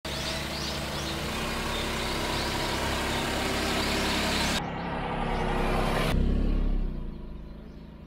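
Kei mini truck driving past, its small engine running with tyre and road noise. The sound changes abruptly about halfway through and fades away near the end.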